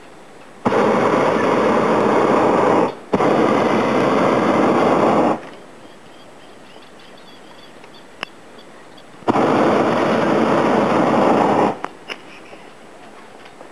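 Hot air balloon's propane burner firing in loud blasts that start and stop abruptly. There are two long blasts with a brief break between them, a pause of about four seconds, then another blast of about two and a half seconds.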